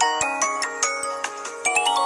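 Mobile phone ringtone: a quick melody of short, bright notes, with a rising run of notes about one and a half seconds in.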